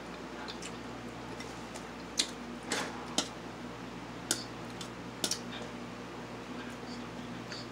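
A fork clicking and scraping against a metal plate while picking at food, a handful of sharp clicks between about two and five seconds in, over a steady low hum.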